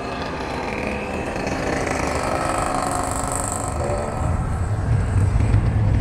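Motorcycles riding past with the engine note shifting in pitch. A low rumble grows louder about four seconds in.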